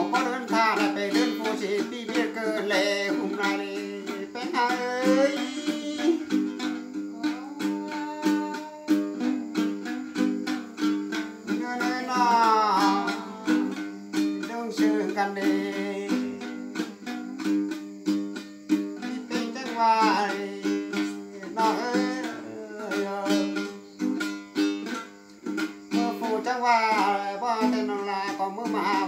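Thái folk singing: a voice sings a drawn-out, wavering melody in phrases, over the steady plucked notes of a tính tẩu, a long-necked gourd-bodied lute.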